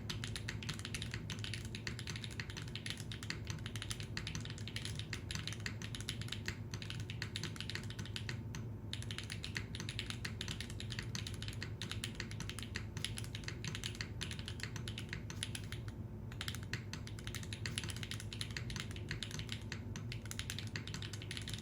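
Fast continuous typing on an F1-8X v2 mechanical keyboard with Gateron Baby Kangaroo tactile switches on an aluminium plate, a dense run of keystrokes with brief pauses about nine and sixteen seconds in. A steady low hum runs underneath.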